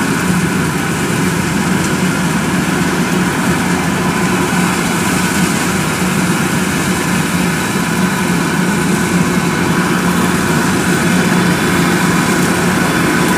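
Kubota DC-108X combine harvester's diesel engine and threshing machinery running steadily at a constant pitch under the load of cutting rice.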